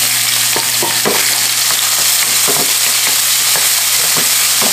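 Diced pork neck sizzling as it fries in chili oil in a wok, stirred with a wooden spatula that knocks and scrapes against the pan every so often.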